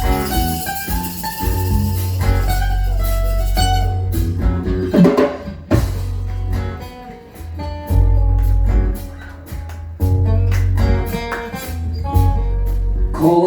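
Band music without singing: guitar over drums, with a heavy low end.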